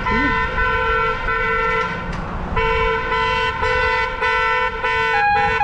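A vehicle horn honking over and over, a single steady pitch in short and longer blasts with a brief pause about two seconds in; near the end a second, higher-pitched horn joins in. Low traffic rumble underneath.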